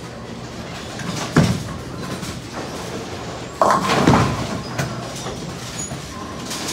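Bowling ball crashing into the pins about three and a half seconds in, a sudden clatter that lasts about a second. A sharp thud comes about a second and a half in, over the steady din of a busy bowling alley.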